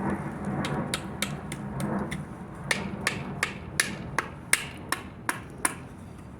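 A wooden hand-drill stick being tapped to seat its horseweed tip: about fifteen sharp wooden taps, roughly three a second, the later ones louder.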